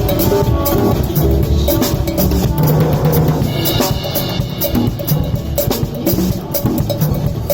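Loud music played during a sound check, led by a drum kit playing a busy beat of bass drum and snare.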